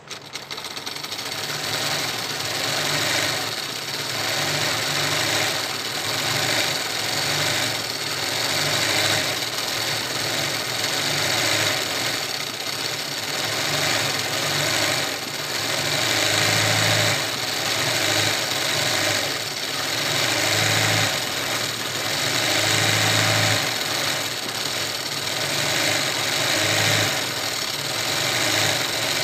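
Sewing machine stitching fabric: it starts suddenly at the beginning and runs continuously, with slight rises and falls in speed.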